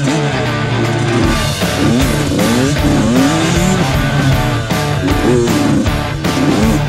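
Rock music with electric guitar playing bending, gliding lines.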